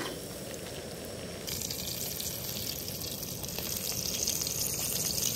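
Flour-dredged squirrel pieces frying in hot oil in a cast-iron skillet, a steady bright sizzle that starts abruptly about one and a half seconds in and grows slightly louder. Before it there is only a low, steady rush.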